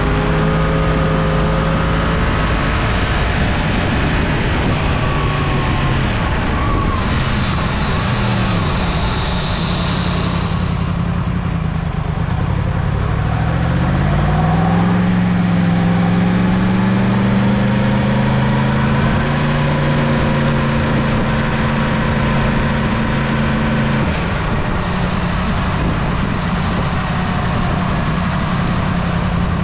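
Yamaha FZ-10's crossplane inline-four running under way over a steady rushing noise. Its pitch climbs as it accelerates about halfway through, holds for several seconds, falls away, then climbs again near the end.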